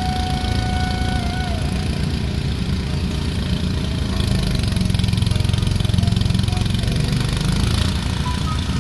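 Small engine running steadily with a rough, rhythmic rumble that gets louder about halfway through.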